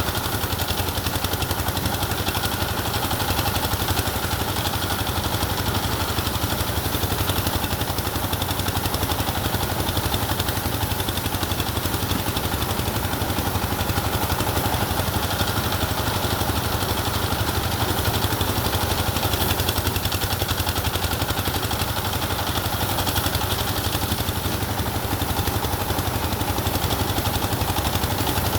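An engine running steadily at an even speed, with a rapid, even pulse.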